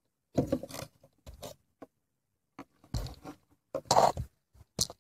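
Several short, irregular scrapes and rustles of clothing and the camera against dry wooden boards, coming in bursts about a second apart. The loudest is about four seconds in.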